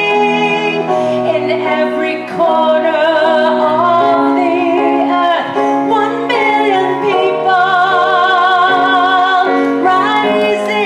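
A woman singing into a microphone over a sustained instrumental backing, her held notes wavering with vibrato.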